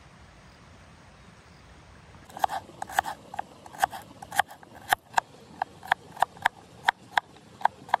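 A run of sharp, irregular knocks, about two or three a second, starting a couple of seconds in: a hand tool striking a hard surface during food preparation.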